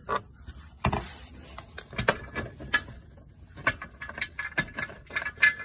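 Irregular light clicks and taps, several over a few seconds, from a hand handling the unbolted underbody skid plate of a Ford Bronco.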